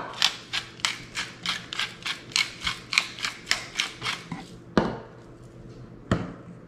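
Hand-twisted pepper mill grinding, a quick run of sharp ratcheting clicks at about three a second for roughly four seconds. Then two single knocks follow as the mill is set down on a stone countertop.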